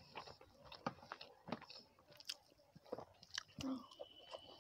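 A person chewing a mouthful of rice and curry eaten by hand, with soft, scattered mouth smacks and clicks.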